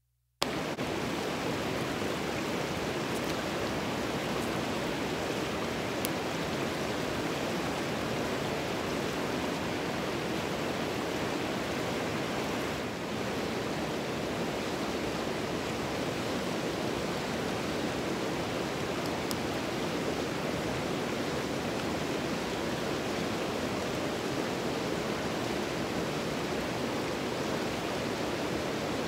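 Rushing mountain river rapids: a steady, even rush of water that cuts in abruptly about half a second in.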